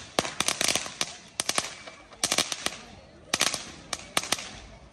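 Firecrackers going off in quick clusters of sharp cracks, about one cluster a second. They stop shortly before the end.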